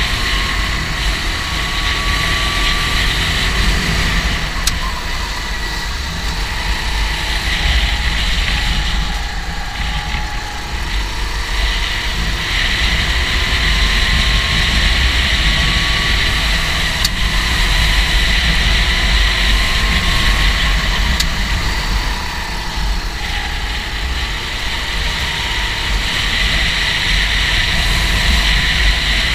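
Go-kart engine running at speed over a loud, steady low rumble and hiss. Its whine slowly rises in pitch, then drops back, several times over.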